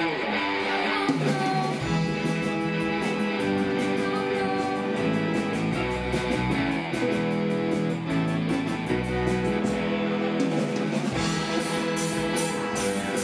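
Live rock band playing: electric guitars with a drum kit, the cymbal strokes keeping a steady beat from about a second in and getting louder near the end.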